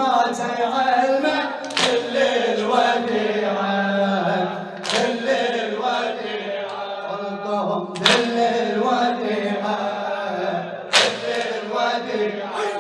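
A group of men chanting a Shia mourning lament (latmiyya) together, with a loud unison slap of chest-beating about every three seconds, four times.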